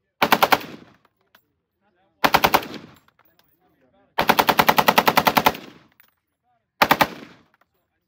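FN SCAR 16 rifle (5.56 mm) firing on full automatic in four bursts at about ten rounds a second: two short bursts, a longer one about four seconds in, and a final three-round burst near the end.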